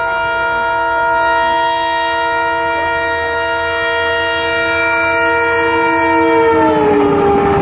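Locomotive's air horn held in one long continuous blast as the train approaches at speed, its pitch dropping as the locomotive passes about seven seconds in. A rush of wheels on the rails rises after it passes.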